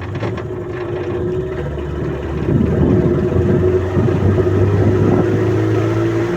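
Motorboat engine running steadily, growing louder about two and a half seconds in.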